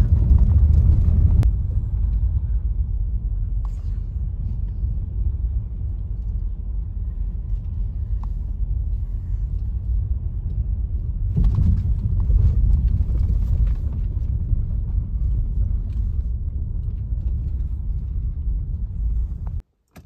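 Steady low rumble of a vehicle on the move, engine and road noise together, stopping abruptly near the end.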